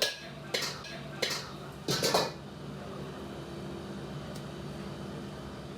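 Kitchenware clattering: a few sharp knocks of metal utensils and dishes in the first two seconds, the last a short rattling cluster, over a steady kitchen hum.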